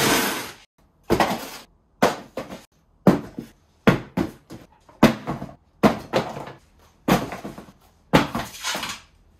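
Replacement suspension parts being set down one after another: about eight sharp knocks, roughly one a second, each fading quickly.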